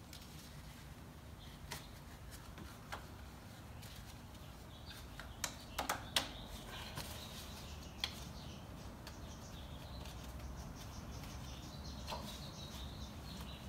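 Light clicks and knocks of gloved hands and parts being handled in a car's engine bay, with a quick cluster of sharper clicks about six seconds in and another click about two seconds later. A few faint high chirps come through between them.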